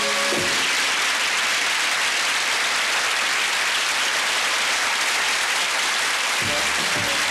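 Audience applauding steadily. Band music cuts off about half a second in and starts up again near the end.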